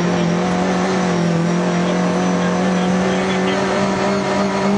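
Lada VFTS rally car's four-cylinder engine pulling hard at nearly constant revs on a stage, heard from inside the cockpit, with road and tyre noise underneath.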